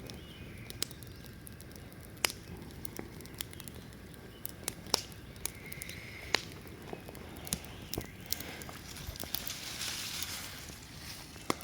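Wood bonfire crackling, with irregular sharp pops over a steady hiss. A stretch of louder hissing comes near the end.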